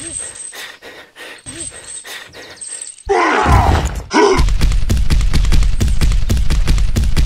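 Dubbed cartoon sound effects: a deep growling voice about three seconds in, then a loud low rumble with quick knocks.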